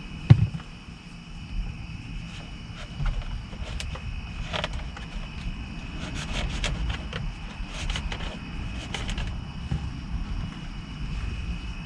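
Scattered clicks and small knocks of a flat-blade screwdriver working a steering-wheel airbag's spring-loaded retaining pins and plastic trim, with one sharper knock right at the start, over a steady low rumble.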